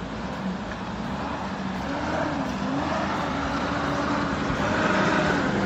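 Off-road vehicle engine running, its pitch wavering as the throttle is worked and growing steadily louder.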